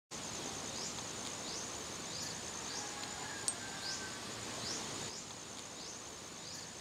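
Outdoor nature ambience: insects trilling steadily at a high pitch over a soft hiss, with short rising chirps repeating every second or so. A single sharp click sounds about halfway through.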